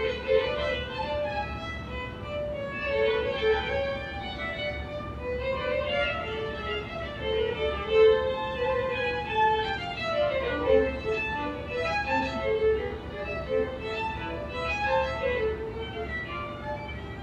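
Two violins playing a bowed duet, with continuous interweaving melodic lines and no breaks.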